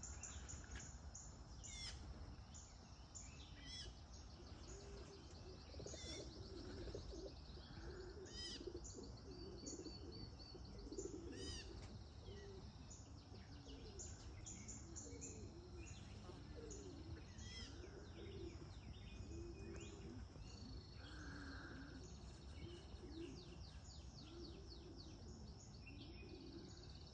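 Faint birdsong: small birds chirping and giving quick trills again and again, short high calls scattered throughout, over a steady low rumble.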